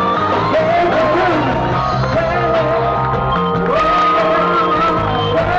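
Live band music with a singer's voice carrying the melody over a steady bass line.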